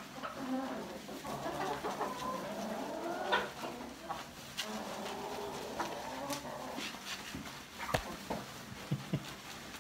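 A flock of ISA Brown and barred rock hens clucking and calling softly, with a few short sharp clicks and scuffs among the calls.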